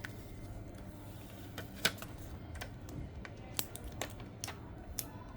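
Scattered light clicks and ticks, about ten of them at uneven spacing, from handling a new iPhone 12 mini replacement screen while its protective stickers are peeled off.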